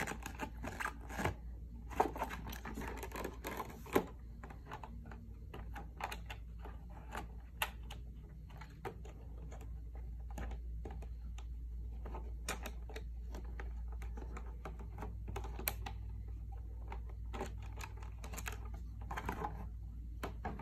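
Thin clear plastic packaging tray crinkling and clicking in irregular bursts as a headset is worked free of it by hand, over a steady low hum.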